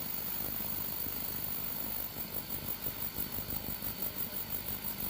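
Steady hissing hum of jewellery soldering equipment; about two seconds in, it starts to pulse evenly about three to four times a second.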